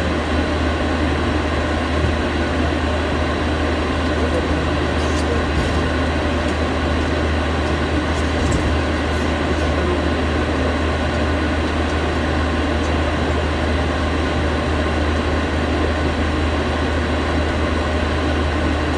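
Steady engine and airflow noise of an aircraft in flight, heard as an unbroken loud rumble with a hiss over it.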